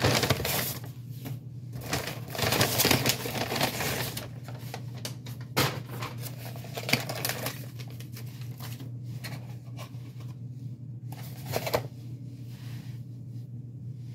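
Paper takeout bag rustling and crinkling as hands reach in and pull food out, with a few sharp clicks and knocks of a cardboard sandwich box being handled. A steady low hum runs underneath.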